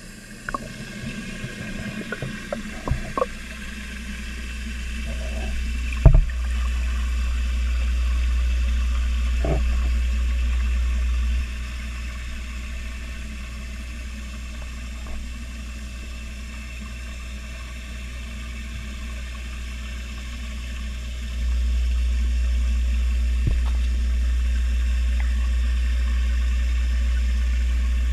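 Steady low underwater rumble in a fish tank, heard muffled through a submerged camera's housing. It grows louder about six seconds in, drops back for about ten seconds midway, then rises again. A few knocks sound in the first seconds, with a louder one about six seconds in.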